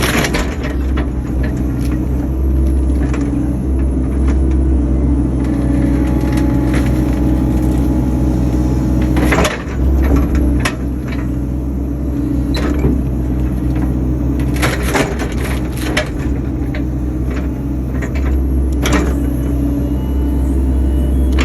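Excavator engine running steadily under load, heard from inside the cab, with repeated sharp cracks and knocks of wood as the bucket tears at and cleans stumps. The cracks come in clusters, about halfway through and again later.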